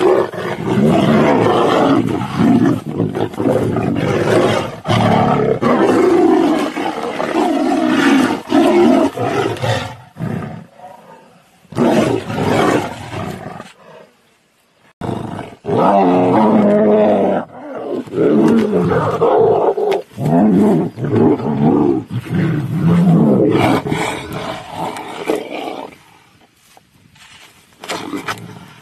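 Tigers roaring repeatedly as they fight, in long runs broken by short pauses about ten and fourteen seconds in, and quieter near the end.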